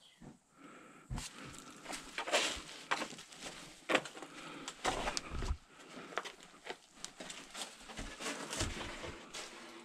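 A man breathing hard in uneven gasps while scrambling down over rock, with scuffs and occasional knocks from his steps and hands.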